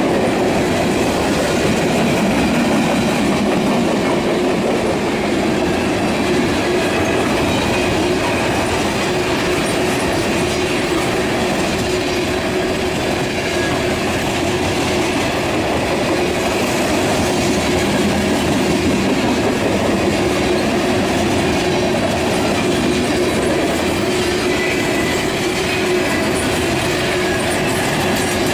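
Train cars rolling steadily past on the rails: a continuous, even rumble and clatter of steel wheels on track.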